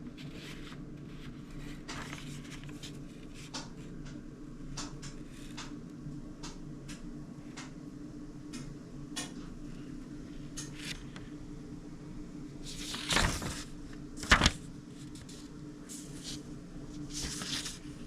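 Steady low room hum with scattered light clicks and handling knocks; a louder clatter about thirteen seconds in, followed by a sharp knock just after.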